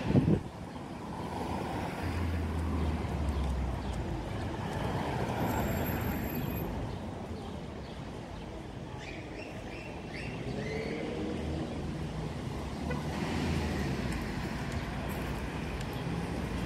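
Street traffic: a steady traffic hum, swelling several times as cars pass.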